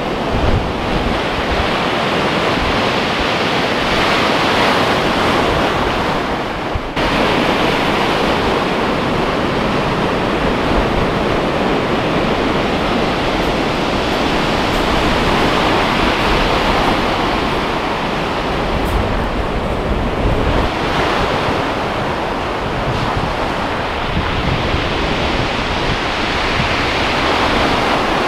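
Rolling surf breaking and washing up a shingle beach: a steady rush of waves that drops out briefly about seven seconds in.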